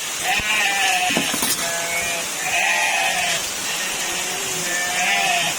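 Goats bleating over and over, about five calls roughly a second apart, over the steady hiss of very heavy rain.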